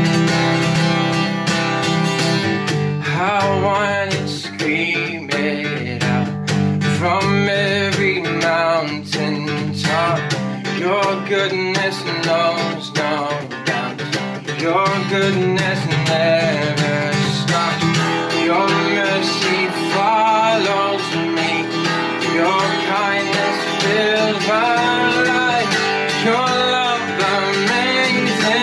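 Steel-string acoustic guitar strummed steadily in chords, with a man singing a melody over it.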